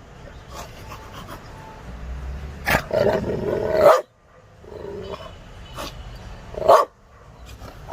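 An animal vocalising in several loud bursts, the longest lasting about a second in the middle, then a softer one and a short sharp one near the end.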